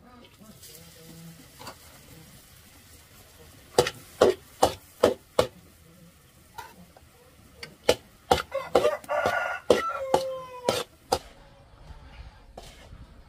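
A rooster crowing once, a call that holds and then falls away, about nine seconds in, amid a run of sharp knocks.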